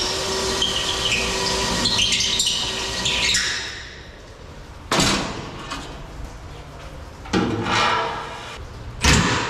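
Cordless drill boring into stainless steel: a steady motor tone with a high whine, which stops about three and a half seconds in. Then three sharp knocks on metal that ring out, about two seconds apart.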